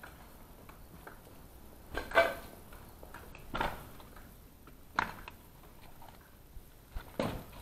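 Footsteps crunching and clinking on loose rubble of broken bricks and tiles, four slow steps about a second and a half apart, the loudest about two seconds in.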